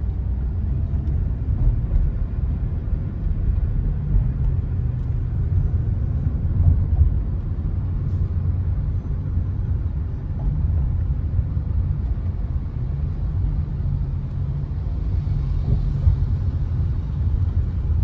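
Steady low rumble of road and engine noise inside a car's cabin while driving at freeway speed.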